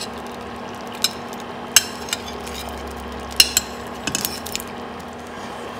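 A few sharp clinks of a metal utensil against a cooking pot, with a quick run of clinks about four seconds in, over a steady low hum.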